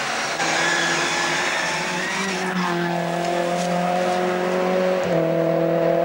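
Rally car passing close at full throttle, its engine note held high and steady. The engine breaks off briefly about five seconds in, then picks up again.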